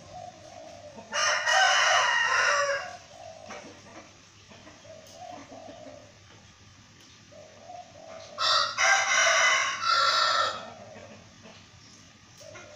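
Rooster crowing twice, about six seconds apart, each crow about two seconds long. Softer chicken clucks come in between.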